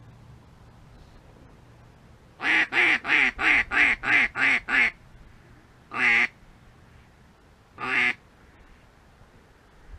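Mallard-style duck call blown close by: a quick run of eight quacks in about two and a half seconds, then two single quacks a couple of seconds apart, in the cadence of a hen mallard's greeting call.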